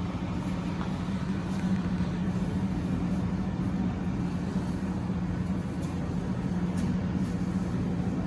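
A motor vehicle's engine running steadily with a constant low hum.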